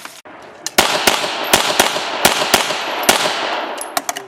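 Pistol shots fired in quick succession at an action pistol stage: about seven sharp reports, irregularly spaced, starting just under a second in, each followed by a short echo. A couple of fainter shots come near the end.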